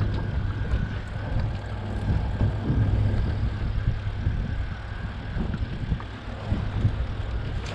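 Strong wind buffeting the microphone at sea, a steady low rumble with uneven gusts.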